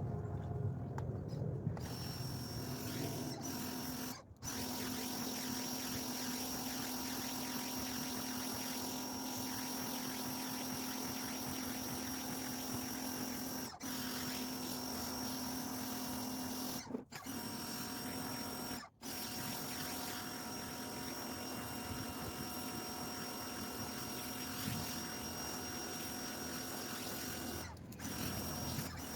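Ryobi electric pressure washer running and spraying, a steady hiss of water with the motor's low hum and a high whine, broken off briefly a few times.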